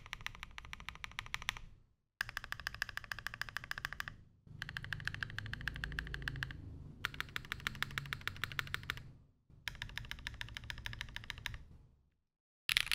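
Fast typing on an F1-8X mechanical keyboard with an FR4 plate, lubed Zaku switches, GMK Modo 2 keycaps, and tape and PE foam mods. The keys clack in quick runs of about two seconds each, with short pauses between them. A sixth run starts near the end.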